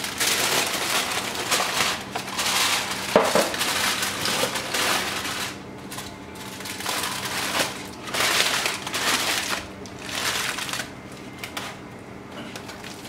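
Aluminium foil crinkling and crumpling in irregular bursts as it is pulled off a steel bowl, thinning out near the end.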